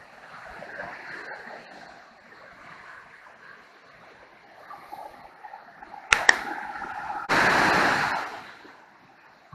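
Niagara River rapids rushing steadily. About six seconds in come two sharp clicks, then a loud burst of rushing noise that lasts about a second and fades out.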